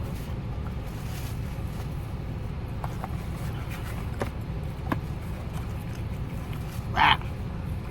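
Steady low outdoor rumble, with a few faint clicks and one short, sharper sound about seven seconds in.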